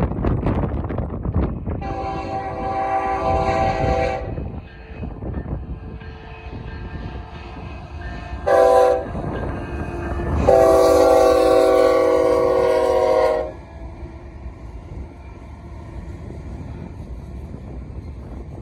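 Diesel locomotive air horn sounding three chords: a blast of about two seconds, a short toot, then a longer blast of about three seconds. Underneath, a steady low rumble of the train and wind on the microphone.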